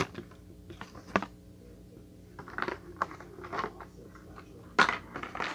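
Handling noises: a clear plastic bag rustling and crinkling, with scattered clicks, and a louder rustle about five seconds in.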